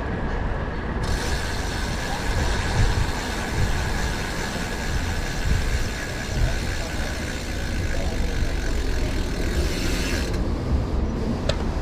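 Bicycle rear freewheel hub ticking rapidly while the bike coasts, starting about a second in and stopping near the end when pedalling resumes, over wind buffeting the microphone.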